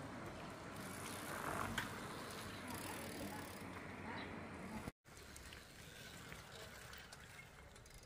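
Bicycles ridden along a paved road: a faint rattle and freewheel ticking over steady outdoor noise. The sound drops out for an instant about five seconds in, then carries on more quietly.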